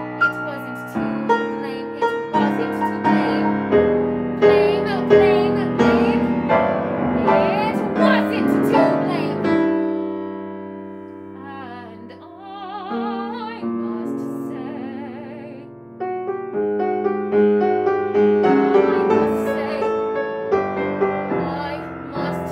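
Art song for soprano and grand piano: a soprano singing with wide vibrato over piano chords. About ten seconds in the piano drops back to soft held notes while the voice sustains long vibrato notes, and a few seconds later the piano comes back in fuller.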